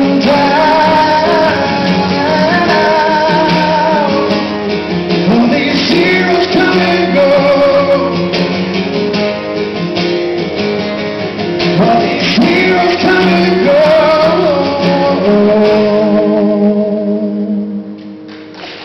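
Live acoustic duo: two acoustic guitars strumming while a male voice sings long, wavering notes without clear words. The song winds down and the playing fades out near the end.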